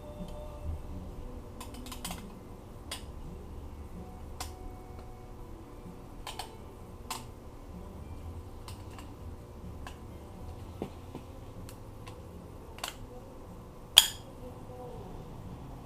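Scattered light clicks and clinks of metal automatic-transmission parts, such as bearings, washers and shaft pieces, being handled and fitted during reassembly, with one sharp loud click about fourteen seconds in.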